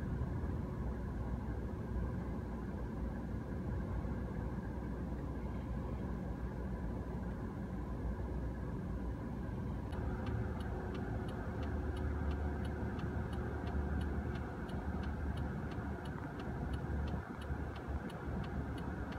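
Low steady hum of a stopped car heard from inside the cabin. About halfway through, a regular ticking starts, about three ticks a second, typical of a turn-signal indicator clicking while the car waits to turn.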